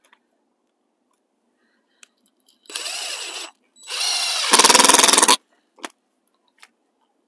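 A cordless drill drives a screw through a stake into plastic bender board edging. It runs in two bursts: a short one about three seconds in, then a longer one that grows louder and ends with a fast, even rattle as the screw goes home.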